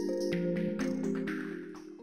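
Background music: sustained chords over a fast, steady ticking beat, fading out near the end.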